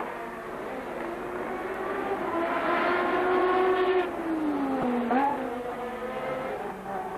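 1988 McLaren-Honda MP4/4 Formula 1 car's turbocharged V6 at high revs passing close by. Its engine note builds to its loudest about four seconds in, then drops steeply in pitch, with a quick upward blip just after five seconds.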